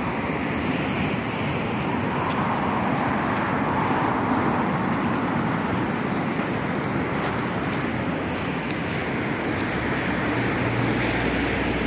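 Steady hiss of road traffic, swelling as if a vehicle passes about four seconds in, with a low engine hum coming in near the end.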